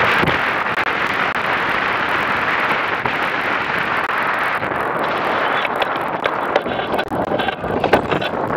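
Wind buffeting the camera microphone and water rushing past the hull of an A-Class catamaran sailing fast. In the last few seconds the boat turns and slows, the rush fades, and scattered knocks and rattles come through as the sailor moves across the deck among the lines.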